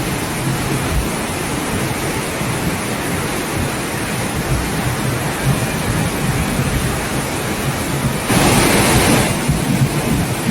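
Floodwater rushing, a steady noise, with a louder surge about eight seconds in that lasts about a second.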